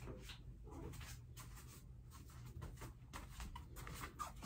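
Faint, irregular scratching and rustling, a string of short strokes over a low steady hum.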